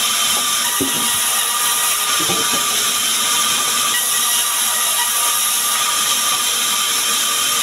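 Large sawmill band saw running and ripping small sengon logs into boards: a loud, unbroken whine and hiss from the blade in the wood.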